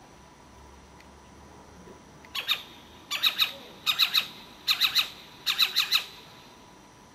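An owl calling: five quick clusters of three or four short, squeaky high notes, the first starting a little over two seconds in and the last about a second before the end.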